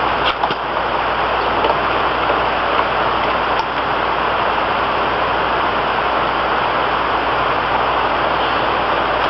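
A loud, steady rushing noise with a low hum underneath.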